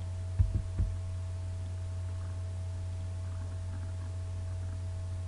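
Steady low electrical hum in the recording, with a faint steady tone above it. Two soft low thumps about half a second in.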